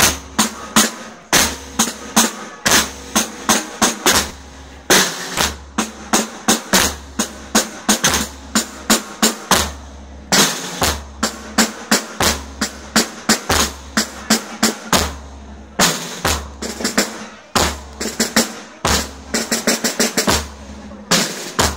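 Processional band drums beating a slow march: a bass drum stroke about once a second with rapid snare drum strokes between.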